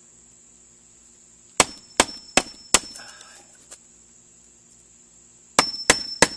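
Claw hammer striking the end of a screwdriver to drive it through a plywood panel and punch a hole. Four quick blows about a second and a half in, then three more near the end.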